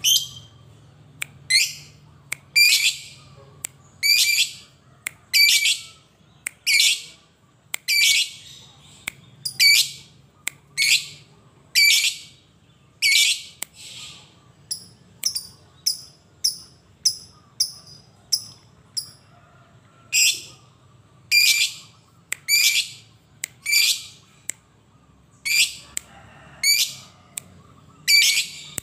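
Lovebird calling: a series of loud, shrill calls at about one a second, breaking in the middle into a quicker run of shorter, higher chirps, then returning to the loud calls.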